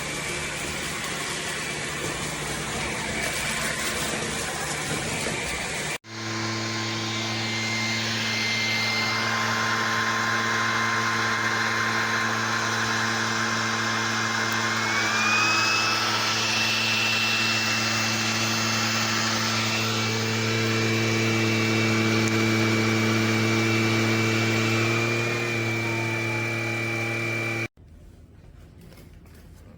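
Bissell PowerClean FurGuard cordless stick vacuum running with a steady motor whine. The whine breaks off abruptly about six seconds in and starts again. Its pitch steps up about halfway through, drops back a few seconds before the end, and the sound then cuts off sharply.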